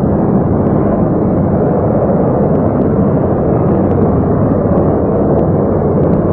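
Rocket engines firing at liftoff: a loud, steady rumbling noise with little high end, heard through an old film soundtrack, with a few faint ticks.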